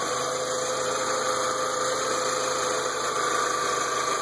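2002 VW Jetta idling in reverse gear with a steady hum and whine over the engine note. This is the reverse-only noise the owner is trying to trace.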